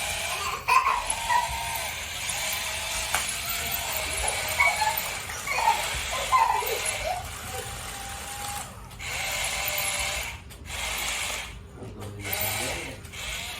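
Small electric motors and plastic gearboxes of RC toy vehicles whirring in stop-start bursts, with high, wavering squeals over them in the first half.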